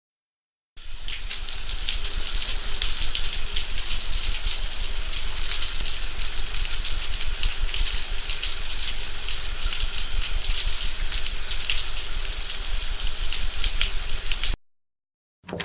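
Water running in a steady stream, splashing with many small crackles; it starts about a second in and cuts off abruptly near the end.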